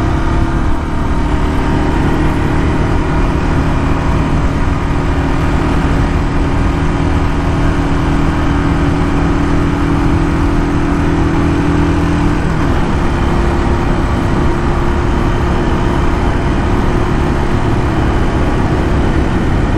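Royal Enfield Classic 350's single-cylinder engine held at full throttle near its top speed of about 110 km/h, its note steady under a loud rush of wind and road noise. About twelve seconds in, the engine note shifts slightly and then holds steady again.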